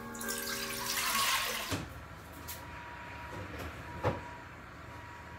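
Water running from a kitchen tap with a steady pitched hum for about the first second and a half. It then cuts to a quieter background with a faint steady tone and a few soft knocks, the clearest about four seconds in.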